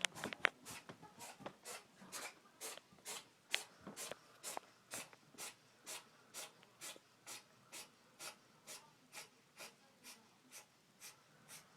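Maine coon cat sneezing over and over in a rapid, even series, a little over two sneezes a second, growing fainter toward the end.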